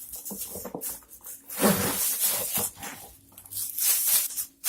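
Small cardboard box and its packing being opened by hand: rustling and tearing of the packaging in two main bursts, about one and a half seconds in and again near the end.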